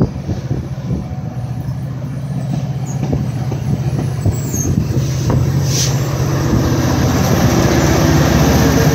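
GO Transit bilevel passenger coaches rolling past, their wheels clicking over the rail, with a short hiss near the middle. From about six seconds in, the diesel drone of the train's MP40PH-3C locomotive grows steadily louder as it comes by.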